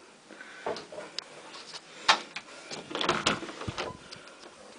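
A run of short knocks and clicks, with the sharpest about two seconds in and a cluster of them about three seconds in.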